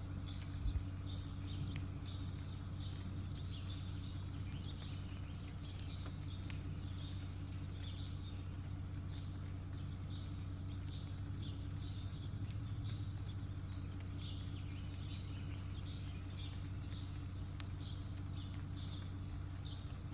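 Small birds chirping and singing in many short, repeated high notes, over a steady low hum. A brief low thump comes just under a second in.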